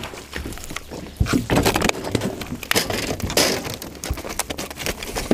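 A hooked largemouth bass splashing and thrashing at the water's surface beside a plastic kayak as it is reeled in and lifted aboard, with irregular knocks and splashes.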